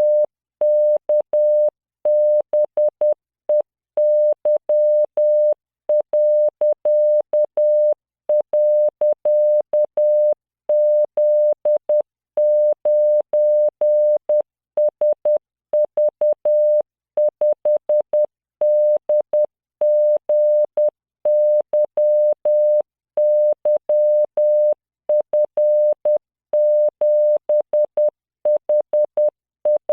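Computer-generated Morse code practice tone: a 600 Hz tone keyed on and off in dots and dashes at 10 words per minute, sending random characters with short gaps between them.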